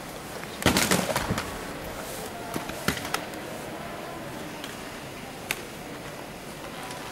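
Kitchenware clattering on a demonstration counter: a quick cluster of sharp knocks and clinks under a second in, then single knocks near three seconds and five and a half seconds, over a steady hiss of hall noise.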